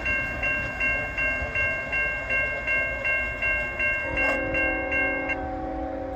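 Railroad crossing bell ringing about three times a second, then a diesel locomotive's multi-note air horn comes in with a steady chord about four seconds in, and the bell stops soon after.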